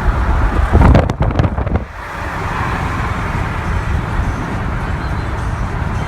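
Steady road and wind noise of a moving car, with a loud, muffled burst of sound lasting about a second, starting about a second in.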